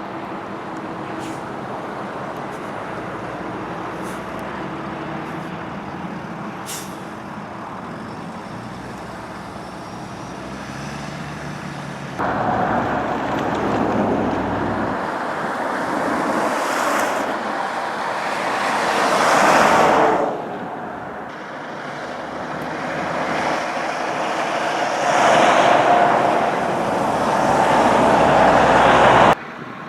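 Road and traffic noise from driving on a snowy freeway: a steady rush that jumps louder about twelve seconds in, then swells up and down several times as heavy vehicles pass, and cuts off suddenly near the end.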